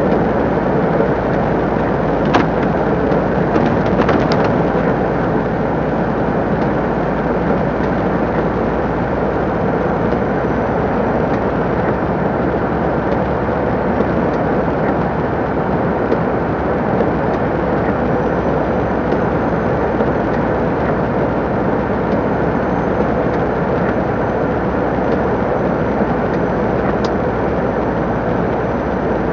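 MAN TGS 26.320 lorry's diesel engine and tyres running steadily at cruising speed, with a constant road rumble and a faint steady hum. There are a few light clicks, about two and four seconds in and again near the end.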